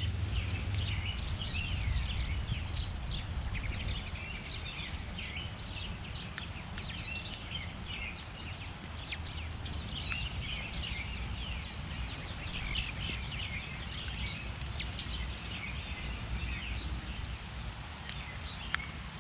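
Many small songbirds chirping and twittering, short overlapping calls coming thick and fast, over a steady low rumble.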